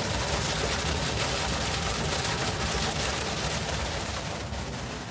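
Steady rushing noise with a low rumble, fading away about four and a half seconds in.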